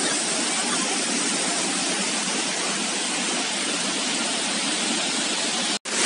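Steady rush of falling and flowing water from a waterfall and its streams, dropping out for an instant near the end.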